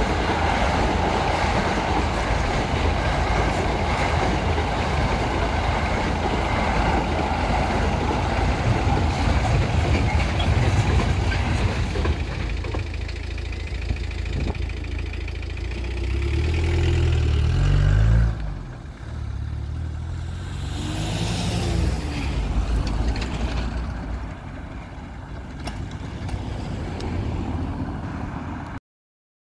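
Freight train container wagons rolling over the level crossing, the rail noise fading away about twelve seconds in. Then road vehicle engines idling and pulling away, with a car passing close near the end before the sound cuts off suddenly.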